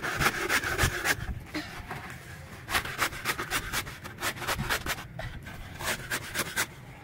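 Plastic toy shovel scraping and digging into gritty, gravelly soil: repeated short scrapes in quick runs.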